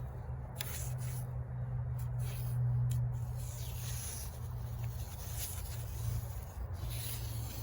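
A steady low hum with light rubbing and scraping handling noises.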